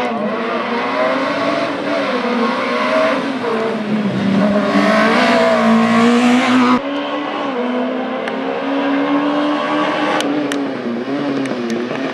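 Race car engine running hard on an autoslalom course, its pitch rising and falling as it revs up and eases off. A louder, harsher stretch begins past the middle and cuts off suddenly.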